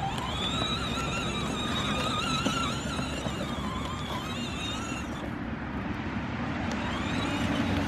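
Electric ride-on toy car driving over grass and dry leaves: a steady, slightly wavering motor-and-gearbox whine over the noise of the wheels rolling. The whine thins out about five seconds in.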